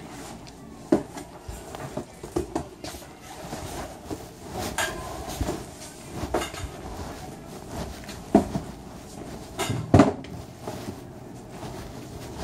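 Scattered knocks and rattles from metal stocking carts and cardboard produce boxes being moved about, the loudest knock about ten seconds in.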